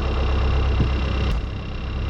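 Diesel engine of heavy equipment running steadily, a deep rumble with a thin high whine that drops out about two-thirds of the way through.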